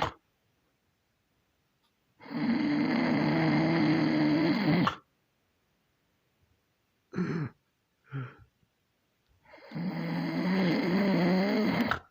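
A sleeping person snoring: two long snores of about three seconds each, with two short snores between them.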